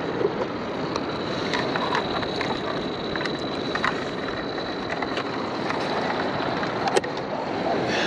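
Steady wash of surf and wind over the microphone, with small plastic clicks and knocks as a bucket lid is handled and pressed shut, and one sharp knock about seven seconds in. A thin, steady high tone runs under it until about then.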